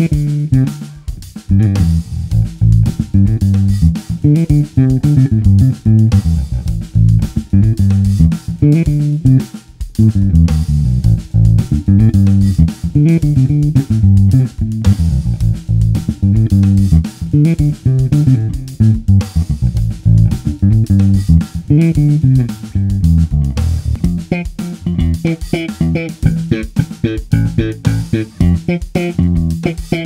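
Yamaha BB735A five-string electric bass played fingerstyle, a busy line of plucked notes through an Eich T900 head into a stacked Barefaced Super Midget and One10 cabinet pair. The tone is bright and crisp from fresh Dunlop Super Bright nickel strings, with the bass in passive mode and the treble fully up.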